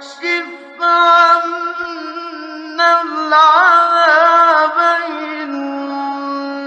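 A man's voice chanting Quran recitation in the melodic tajwid style, drawing out long sustained notes with ornamented, wavering turns.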